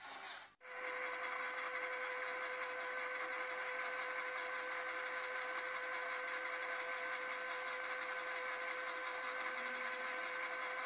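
1811 3800 kV brushless outrunner motor driving a 3D-printed plastic cycloidal reducer, running steadily: a constant whine with evenly spaced overtones over a hissing gear noise. It starts after a brief drop-out about half a second in.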